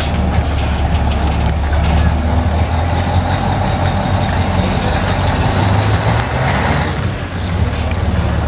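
Old Mack fire engine's engine running steadily as the truck pulls slowly away, with a short dip in level about seven seconds in.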